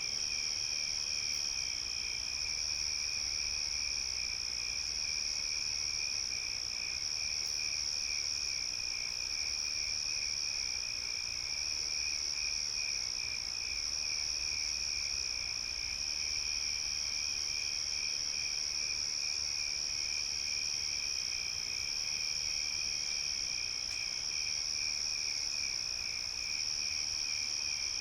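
Night chorus of crickets chirping without a break: one high, steady trill, with a lower, rapidly pulsing trill beneath it and a third insect coming and going.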